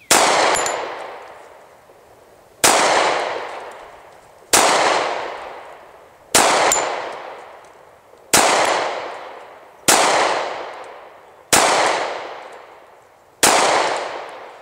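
Rock Island Armory 1911 pistol firing .45 ACP, eight single shots about two seconds apart, each trailing off in a long echo. The magazine is emptied with no jam.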